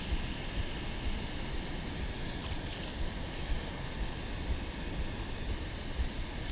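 Steady rushing of river water over a spillway, with wind rumbling unevenly on the microphone.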